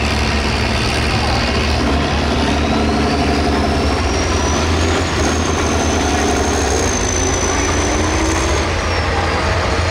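Turbocharged diesel pulling tractor running under load, with a deep engine rumble and a high turbo whine that climbs about two seconds in, holds for several seconds, then falls away near the end.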